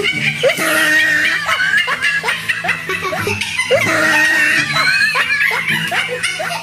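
A woman laughing hard and high-pitched, in quick repeated peals without stopping.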